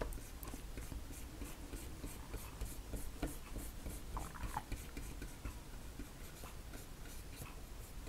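Small flat paintbrush scrubbing water-mixable oil paint onto a stretched canvas: faint, quick, scratchy strokes, a few a second.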